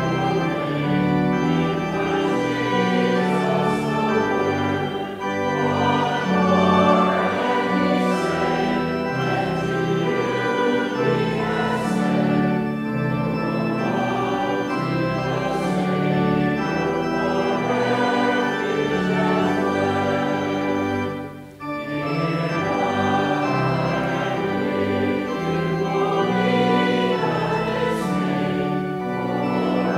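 Congregation singing a processional hymn with pipe-style organ accompaniment, held notes in steady phrases. There is a brief break in the music about two-thirds of the way through.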